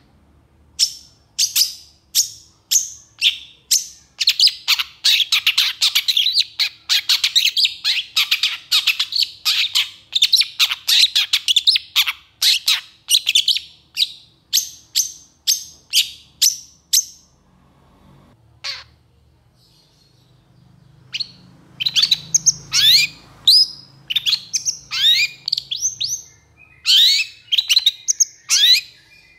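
Long-tailed shrike singing loudly: a fast, unbroken run of scratchy notes, several a second, for over half the time, then a short pause, then bursts of quick notes that slide downward near the end.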